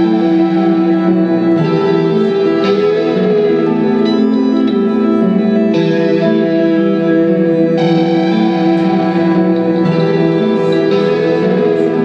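Electric guitar played through echo and reverb: held, layered ambient chords that change every couple of seconds, with a slowly wavering note that comes in twice.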